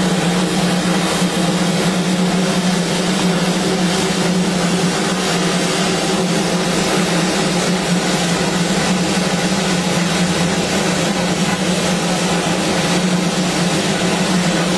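Darjeeling Himalayan Railway B-class saddle-tank steam locomotive standing with steam escaping: a steady, unbroken rushing hiss over a constant low hum, with no exhaust beats.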